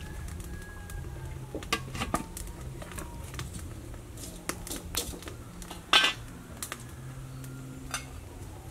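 A metal ladle and a large aluminium cooking pot and lid clinking and knocking: a string of sharp clinks, with one louder ringing clank about six seconds in.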